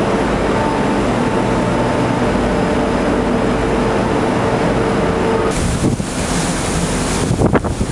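Train ferry's enclosed vehicle deck: a loud steady din of ship machinery and ventilation with a steady hum. About five and a half seconds in it gives way to wind rushing over the microphone out on deck, with a few knocks near the end.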